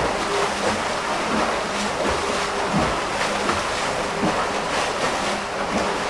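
Steady rushing and splashing of churned water in a counter-current swimming flume with a swimmer stroking through it.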